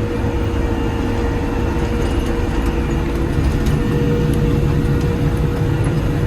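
Krone BiG M self-propelled mower running steadily at working speed while cutting grass, a constant engine drone with a steady hum.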